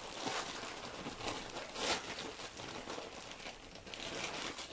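Meat and spices sizzling in a little water in a stainless pressure-cooker pot on a gas burner: a steady crackle of small pops, with one louder spit about two seconds in.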